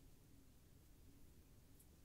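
Near silence: only faint low background noise.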